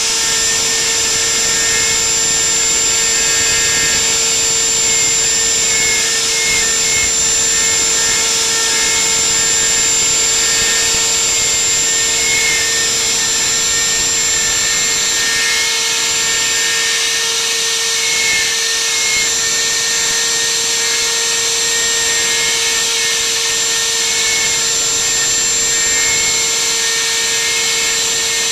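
Spindle of a homemade CNC router running at speed while its bit carves lettering into a wooden board: a steady whine over the hiss of the cutting.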